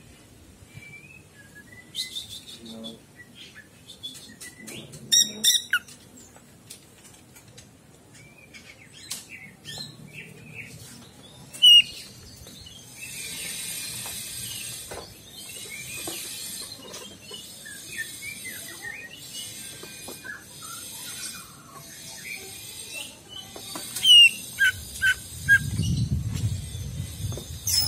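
Cucak ijo (green leafbird) singing: scattered sharp whistles and chirps, with a denser, high, fast twittering from about halfway on.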